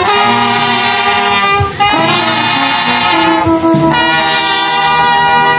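Brass band playing sustained chords, the notes changing every second or so, with a brief break about a second and a half in.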